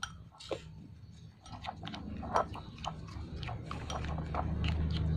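Slime mixture being stirred in a bowl, giving irregular wet, sticky clicks and small knocks, over a low hum that grows louder near the end.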